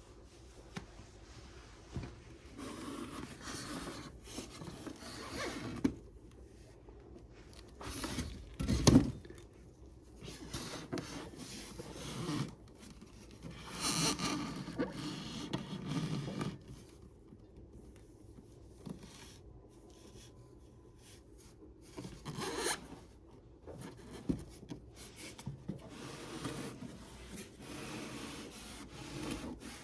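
Intermittent scraping and rubbing noises with a few sharp knocks between them, in a small room.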